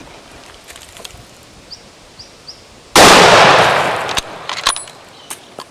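A single loud rifle shot about three seconds in, its report ringing on and fading over about a second; the shot is fired at a chital stag. A few sharp clicks follow.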